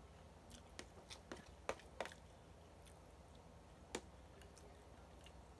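Soft eating sounds as ramen noodles are eaten with a fork from a plastic bowl: a scattering of small clicks and smacks from chewing and the fork over near silence, the sharpest about two seconds in and another at four seconds.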